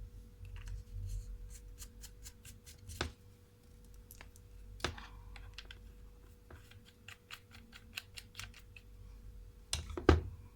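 Handling of small hard parts: a run of light clicks and taps, with a few sharper knocks and a loudest double knock near the end, over a faint steady hum.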